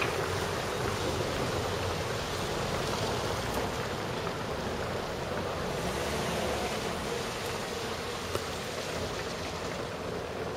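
Steady outdoor street background noise: a continuous hiss with a low rumble, like distant traffic.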